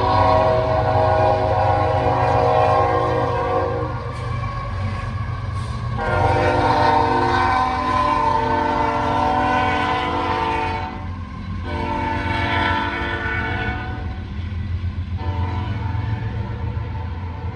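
Union Pacific diesel locomotive horn sounding the grade-crossing signal: two long blasts, a shorter one, then a long one. Under the horn is the steady rumble of the locomotives running past at the head of a double-stack intermodal train.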